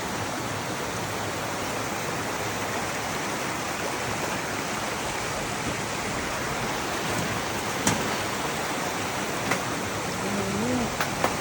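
Dudhsagar Falls' water falling, an even, steady rush. A brief voice comes in near the end.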